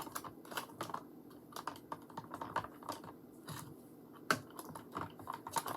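A mixing stick stirring glue into warm water in a disposable cup, giving irregular light clicks and taps against the cup, with one louder knock about four seconds in.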